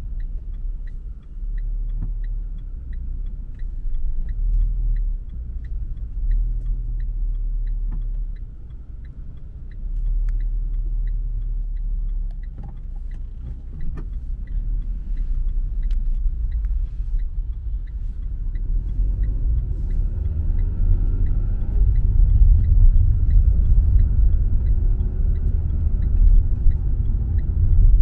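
Car driving on city streets: a steady low rumble of engine and tyres, with a faint regular ticking over it, the rumble growing louder about two-thirds of the way through.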